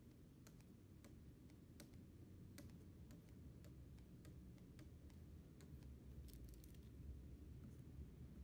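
Faint, irregular clicks of a stylus pen tapping on a pen display's screen, over a low steady hum; a quick run of clicks comes about six seconds in.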